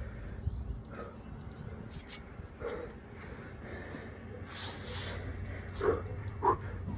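A man breathing hard after a set of jump squats, with a long forceful exhale about two-thirds of the way in and two short, sharp sounds near the end.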